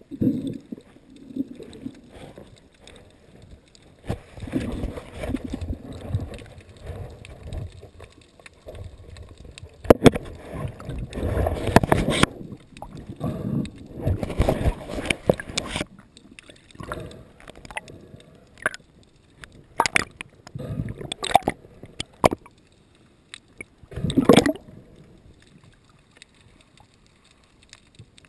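Water splashing and gurgling in irregular surges, with a few sharp knocks, quieter over the last few seconds.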